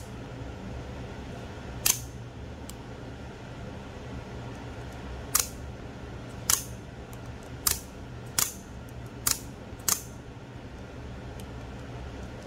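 Microtech Scarab II double-action out-the-front knife being cycled after its overhaul, its spring-driven blade snapping out and back into the handle: seven sharp snaps, irregularly spaced, some in quick pairs.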